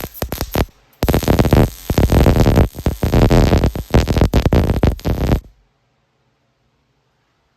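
Wire-feed welding arc crackling and sizzling while weld buildup (hardfacing) is laid onto worn skid steer tire chains. The arc stops briefly, restarts about a second in, and cuts off suddenly near the end.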